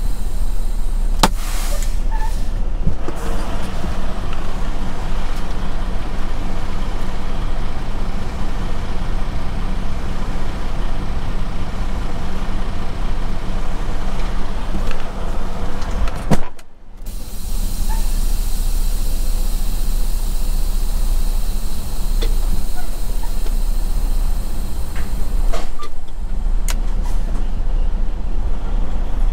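Semi truck's diesel engine idling steadily, with one sudden loud burst about halfway through followed by a brief dip.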